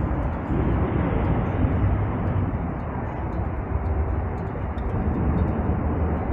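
Steady rush of wind and riding noise on an action camera's microphone as a fat bike rolls along the trail.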